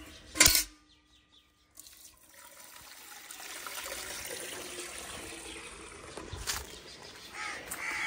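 Water pouring from a hose into a metal bucket, starting about two seconds in and then running steadily. There is a single sharp knock about half a second in, and a crow cawing near the end.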